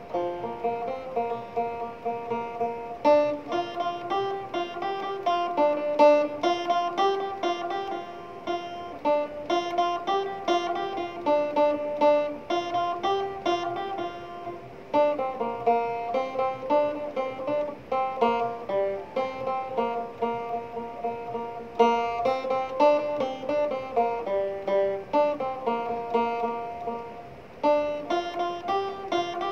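Background music played on a plucked string instrument, a quick run of picked notes in a steady rhythm.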